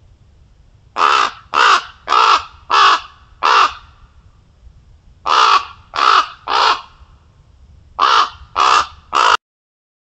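Common ravens giving eleven harsh caws in three bouts of five, three and three: alarm calls with a coyote in the area. The sound cuts off suddenly near the end.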